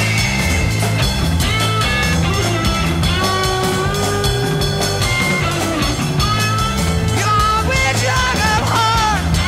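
Rock music with a steady beat and a sung vocal line.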